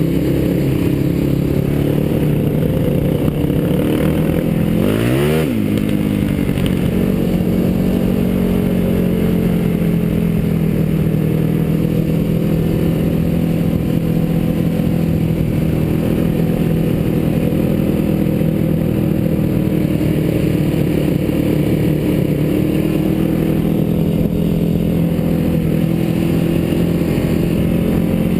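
A sport quad's single-cylinder four-stroke engine running steadily under way, with its pitch briefly dipping and rising again about five seconds in.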